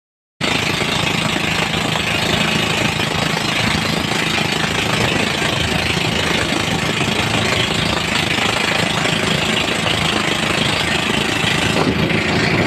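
Engine of a motorized outrigger boat (bangka) running steadily under way, under a steady rush of wind and water noise. It cuts in abruptly about half a second in, after silence.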